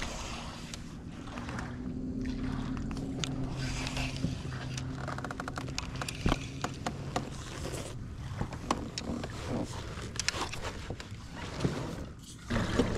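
Old Town Salty PDL 120 pedal-drive kayak under way: a steady low whir from the pedal drive, with scattered clicks and knocks.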